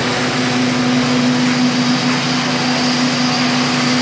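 Small engine running steadily at one unchanging pitch, with a dense rushing noise over it.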